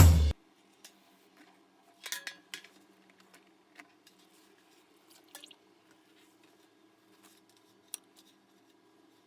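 Background music cutting off, then a few faint, short clicks and snips of kitchen prep handling over a low steady hum.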